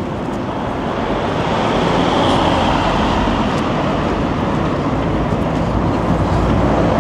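City street traffic: steady road noise from passing cars, growing louder about two seconds in as vehicles pass close by.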